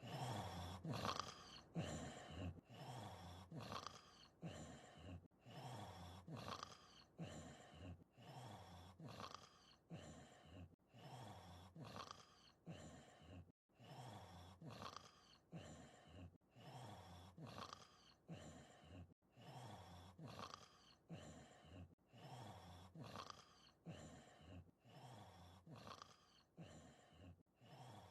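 Performed snoring of a giant cartoon wolf, voiced for an anime dub: quiet, rhythmic snore breaths with a high whistling note in each cycle, repeating evenly about every two and a half seconds.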